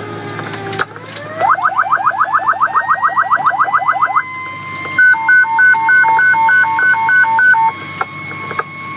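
Fire radio evacuation alert tones: a fast warbling tone of about eight rising sweeps a second for nearly three seconds, then an alternating high-low two-note tone for about three seconds. They signal all firefighters to evacuate the burning structure.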